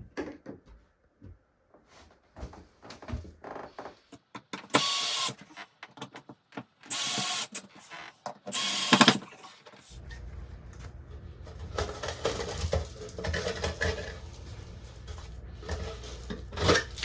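A power drill running in three short bursts, each under a second, among scattered knocks and clicks of hand work. Later a steady low hum sets in.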